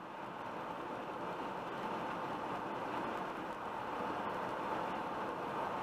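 Steady tyre and road noise with engine hum, heard inside a car's cabin while cruising at about 90 km/h on a highway, growing a little louder over the first two seconds.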